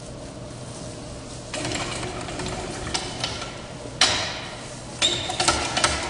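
Mechanical calf puller (calf jack) being worked to draw a model calf out: rattling clicks of the ratchet, bar and chains starting about a second and a half in, a sharp metal clank about four seconds in, then a quicker run of clicks and rattles.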